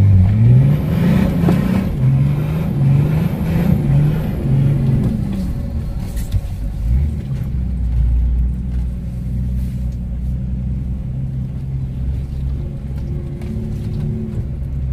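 Nissan Patrol Y60's engine revving, its pitch climbing at the start and rising and falling for about five seconds, then running at an even pace.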